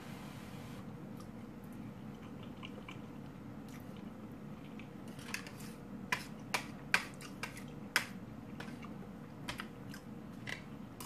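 Close-up chewing of a mouthful of stuffed bell pepper. From about four seconds in there are scattered sharp clicks and taps as fork and knife cut into food on the plate.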